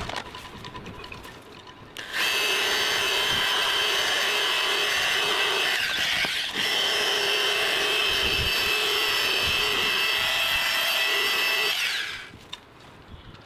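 Electric dual-action polisher with a light cutting pad, buffing compound into old boat gelcoat. It starts suddenly about two seconds in and runs at a steady whine, dips briefly in pitch and loudness partway through, then winds down near the end.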